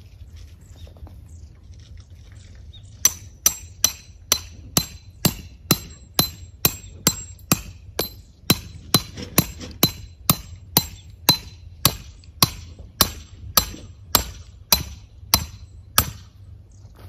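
A hammer driving a metal tent stake into the ground: a long run of sharp, ringing metallic strikes at a steady pace of about two a second. It starts about three seconds in and stops about a second before the end.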